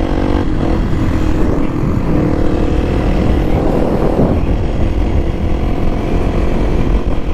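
Kawasaki KLX300SM's single-cylinder four-stroke engine running at a steady pace while riding, with wind rumbling on the microphone.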